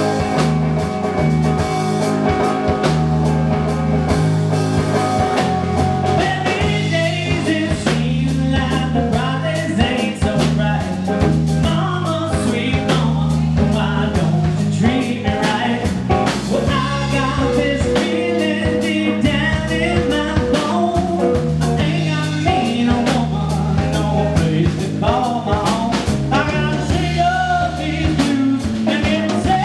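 Live blues band playing: electric guitar, electric bass and drum kit, with a man singing into the microphone. A wavering lead line comes in over the repeating bass and drums about six seconds in.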